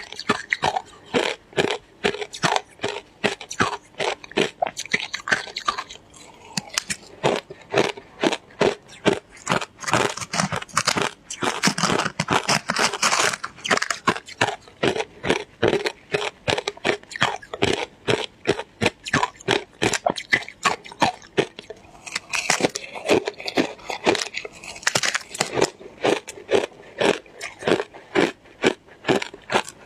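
A person chewing shaved ice, with a steady run of crunches at about two to three a second.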